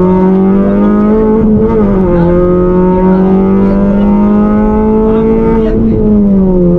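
Suzuki Swift rally car's four-cylinder engine pulling hard at high revs, heard from inside the cabin. Its pitch dips briefly about two seconds in, climbs steadily under throttle, then falls near the end.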